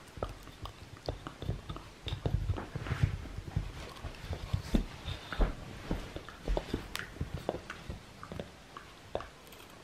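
Shiba Inu gnawing a wooden kamaboko board: irregular crunching clicks and knocks of teeth on wood, busiest in the middle.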